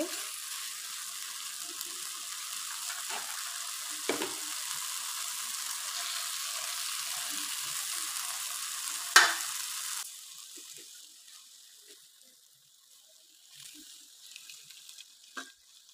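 Thick tomato-spice masala sizzling in a hot pan, a steady hiss with one sharp knock about nine seconds in. The sizzle cuts off suddenly about ten seconds in, leaving only faint taps as raw fish pieces are laid into the masala.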